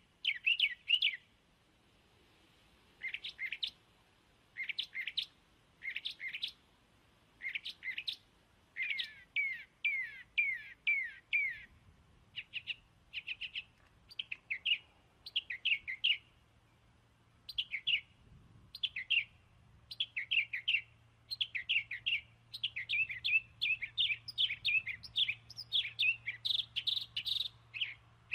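A bird chirping in quick runs of short, high, falling chirps, with pauses of a second or two between runs, growing busier near the end.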